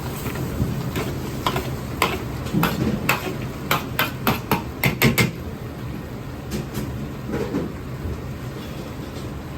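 Kitchen clatter: a quick run of about a dozen sharp metal knocks, utensils striking cookware, a couple of seconds in, with a few more later, over a steady low hum of the kitchen.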